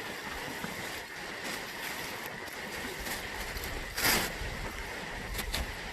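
Steady rush of river water, with one louder splash about four seconds in and a few small knocks after it.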